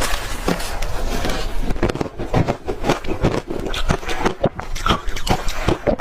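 Soft crushed ice bites being chewed close to the microphone: a rapid run of small crunches, several a second, packing closer together about two seconds in.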